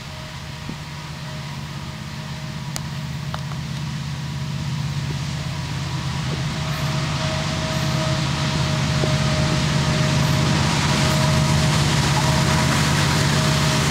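Diesel engines of approaching CN freight locomotives, EMD SD75I units, running under power as the train nears, with a low engine hum and rushing rail noise growing steadily louder.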